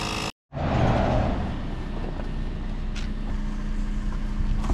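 Motor vehicle noise, a car running close by, broken by a sudden dropout about a third of a second in.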